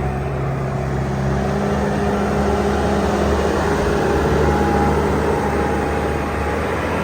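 Bobcat S650 skid steer's diesel engine running steadily, its note shifting slightly as the machine is worked.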